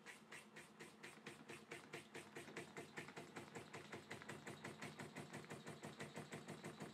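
Handmade model live-steam engine running, giving a fast, even train of beats that gradually quickens.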